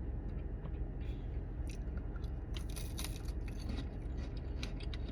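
A person chewing a crisp wheat cracker, with irregular crunches and crackles over a steady low hum.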